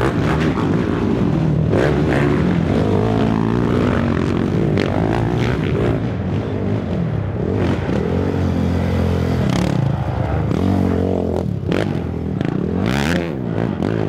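Race ATV engines revving up and down as quads climb and accelerate along a dirt trail, the pitch rising and falling repeatedly, with brief scraping spatters of dirt near the end.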